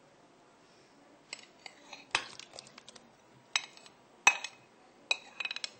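Kitchen utensils and a dish clinking and clattering against a steel cooking pot as banana pieces go into coconut milk: scattered sharp clinks, the loudest about four seconds in, then a quick run of ringing clinks near the end.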